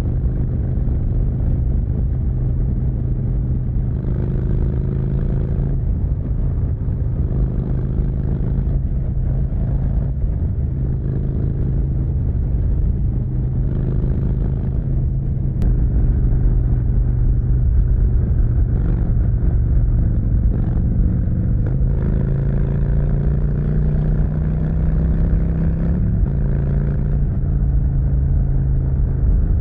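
Harley-Davidson V-twin running through a Vance & Hines Big Radius exhaust while cruising at highway speed, its note rising and easing off several times as the throttle is rolled on, and getting louder about halfway through.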